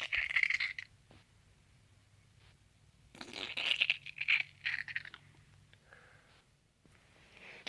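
Rustling, crinkling handling noise in two spells: a short one at the start and a longer one about three seconds in.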